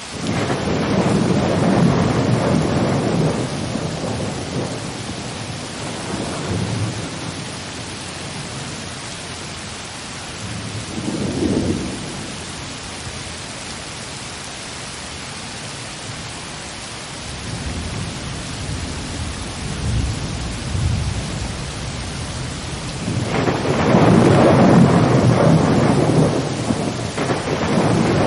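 Rain falling steadily with rolls of thunder. Low rumbles swell near the start, once briefly around the middle, and most heavily in the last few seconds.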